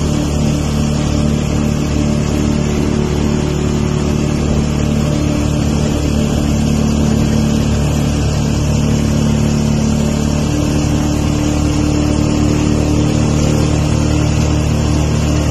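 A motor vehicle's engine running steadily at cruising speed, heard from inside the open-sided passenger compartment, with a constant rush of road and air noise over the engine hum.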